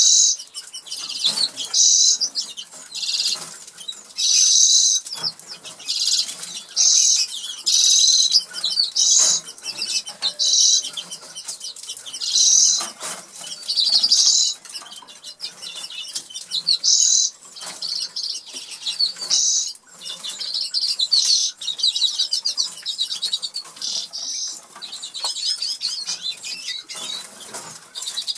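Norwich canaries singing: short bursts of rapid high trills repeating every second or two, with small clicks scattered between them.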